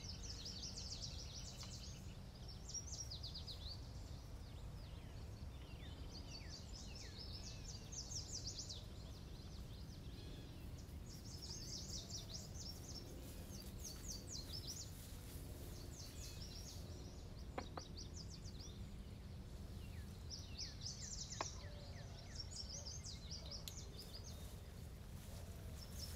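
Small songbirds singing, with repeated rapid trilled phrases coming and going, over a low steady rumble. Two short sharp clicks come in the second half.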